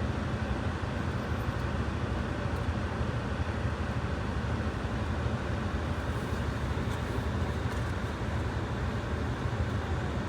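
Vehicle engine running steadily at idle, a constant low rumble, while a trailer is backed up to and hitched.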